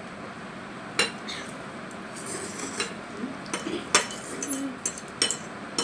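Plastic utensils clinking and scraping against plates while noodles are eaten: a few sharp, irregular clicks, with quieter scrapes between them.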